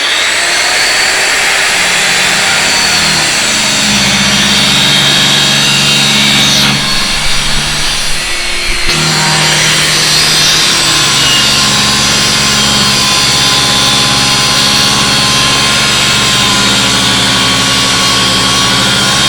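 A 9-inch angle grinder running under load, its cut-off disc cutting through the metal housing of a smaller burned-out angle grinder: a loud, steady grinding screech over the motor's hum, faltering briefly about eight seconds in before it settles again.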